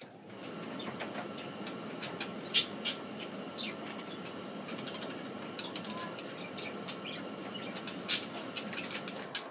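Budgerigars' sharp clicks and a few short high chirps over a steady low rushing noise with a faint hum, which starts and stops abruptly. The loudest click comes about two and a half seconds in, another near the end.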